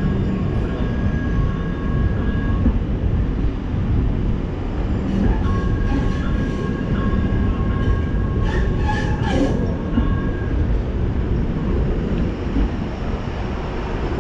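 Light rail train running close by, with a steady high whine that drops out about 3 seconds in and returns from about 5 to 10 seconds, over a constant low rumble. A few sharp clicks come near the middle.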